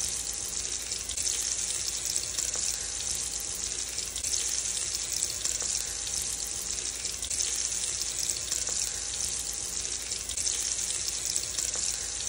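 Steady frying sizzle, a dense even hiss with faint scattered crackles.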